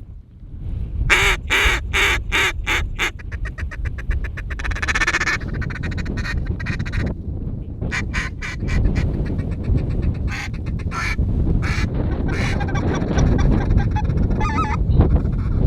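Runs of rapid duck quacking, with scattered calls and some goose honking near the end. Heavy wind buffets the microphone underneath as a loud low rumble.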